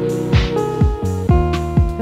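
Background music with a steady beat: a kick drum about twice a second under held chords.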